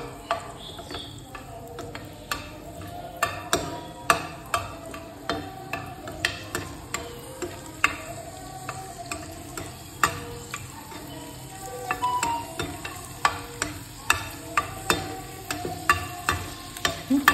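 A spoon stirring dry fruits frying in ghee in a pan, knocking against the pan about once or twice a second over a faint sizzle.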